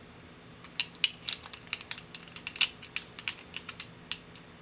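Light, irregular mechanical clicks, several a second, from the opened Ihagee Exakta VxIIb 35mm camera being handled around its take-up spool, starting about half a second in.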